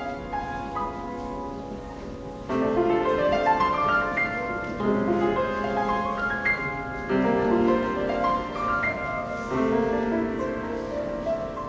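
Grand piano played solo in flowing runs of notes. It is softer for the first couple of seconds, then louder phrases set in about every two and a half seconds.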